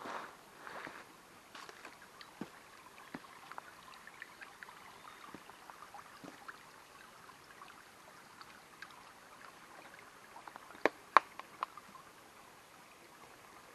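Small mountain stream trickling over rocks, with scattered footsteps on a stony, leaf-strewn path. Three sharp clicks near the end are the loudest sounds.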